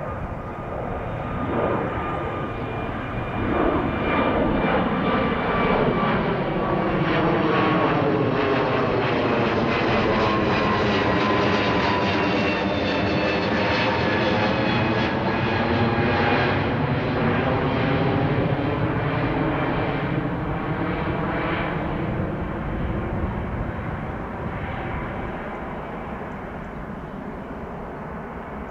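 Airbus A321neo with Pratt & Whitney geared turbofan engines climbing out on departure and passing overhead: the jet noise builds over the first few seconds, holds loud, then fades as it flies away, with a high whine that slides down in pitch as it goes over.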